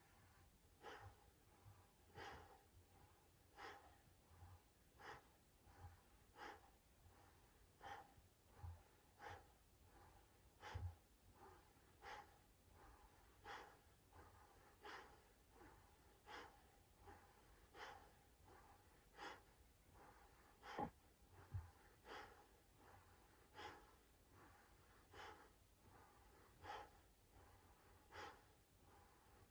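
Faint, quick rhythmic breathing, about three breaths every two seconds, alternating inhale and exhale. The breath is paced by a seated torso twist from side to side.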